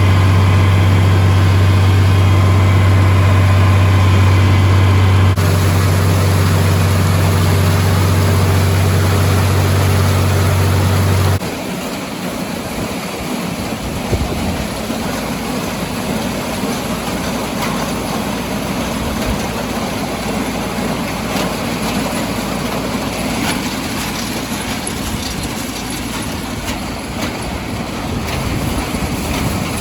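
Farm tractor engine running steadily with a strong low hum. About eleven seconds in, the sound changes abruptly to a quieter, rougher running noise without the steady engine note.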